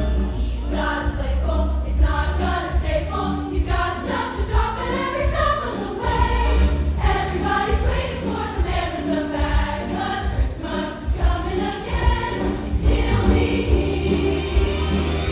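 A choir singing a holiday song with instrumental accompaniment and a strong, steady bass.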